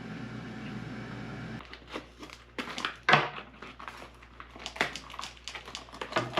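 Plastic packaging crinkling and clicking as a new chainsaw chain is unwrapped by hand, with a louder crackle about three seconds in.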